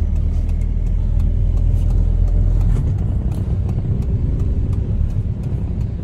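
Hyundai car running, heard from inside the cabin: a steady low rumble of engine and road noise.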